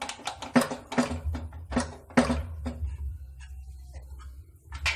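Metal clicks and knocks of a wrench and hands working loose a part on the carburettor of a Swingfog SN50 fogging machine: a quick run of about three or four knocks a second for some three seconds, then fainter handling and one more knock near the end.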